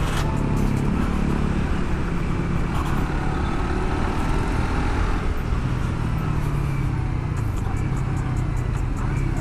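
Sport motorcycle's engine running steadily while riding in city traffic, with a faint rise and fall in pitch near the middle as the throttle changes, over steady road noise.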